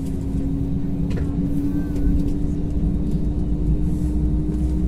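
Airbus A320 cabin noise with the engines running at idle as the aircraft rolls slowly on the ground: a steady low rumble under a steady hum that creeps slightly higher in pitch.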